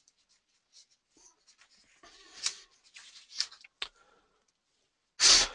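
Faint rustling and scratching close to a headset or desk microphone, with a few soft clicks, then a short loud breath into the microphone near the end.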